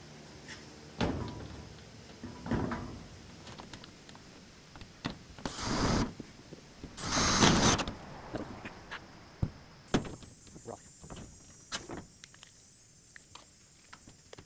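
Power drill driving screws into metal roofing panels in short runs of about a second each, the two longest and loudest about halfway through. Light clicks and knocks follow near the end.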